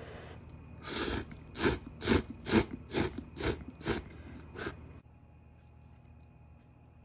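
A person slurping ramen noodles in a quick series of about eight sharp sucks, roughly two a second, starting about a second in and stopping before the five-second mark.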